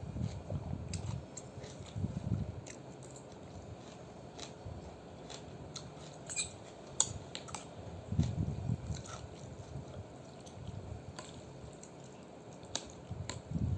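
A person chewing a mouthful of thin rice noodles close to the microphone, in muffled bursts, with scattered light clicks.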